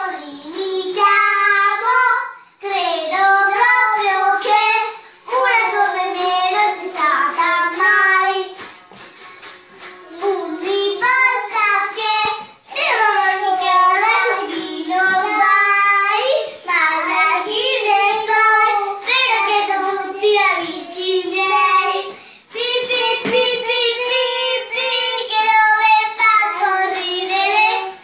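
A young child singing a song loudly, in phrases a few seconds long with short breaks between them.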